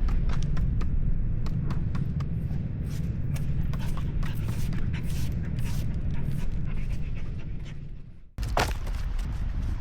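A dog panting over a steady low rumble, with scattered small clicks. The sound cuts off abruptly about eight seconds in, then resumes.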